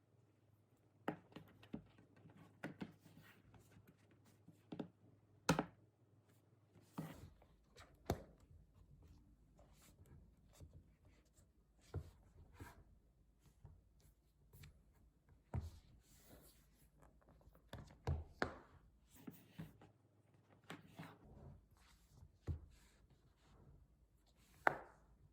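Scattered light taps, clicks and knocks of hard objects being handled, irregularly spaced, with a few sharper knocks among them.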